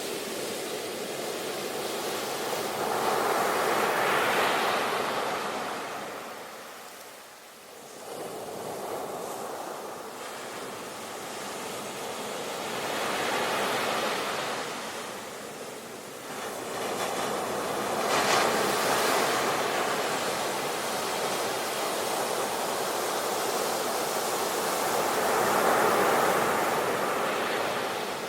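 Sea waves breaking and washing up the shore, the surf rising and falling back in four slow surges, with a brief lull about seven seconds in.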